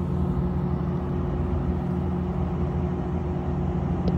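A steady low engine hum, like a motor vehicle running, with no change in pitch.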